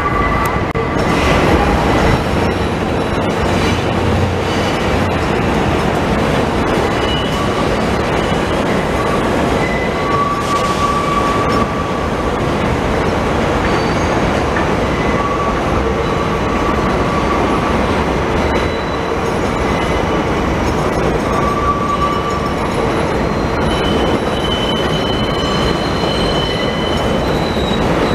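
New York subway trains running on an elevated steel structure: a continuous loud rumble and clatter of wheels on rails, with the wheels squealing on and off in thin high tones.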